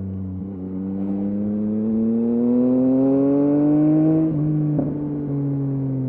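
2023 Yamaha MT-09's 890 cc inline-triple through a LeoVince LV Race exhaust, heard onboard while riding: the revs climb steadily under acceleration for about four seconds, then drop suddenly at an upshift. A short sharp crack follows, then the revs fall away as the throttle eases.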